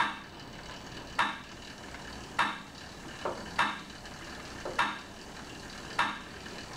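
Monark cycle ergometer being pedalled at about 50 rpm: a short scraping swish once per pedal revolution, about every 1.2 seconds, over a steady low run of the flywheel.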